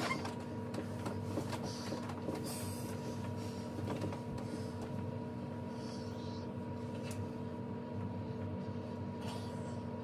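Steady electric hum with a faint whir, like a small motor or fan, running throughout, with bedding rustling in the first few seconds.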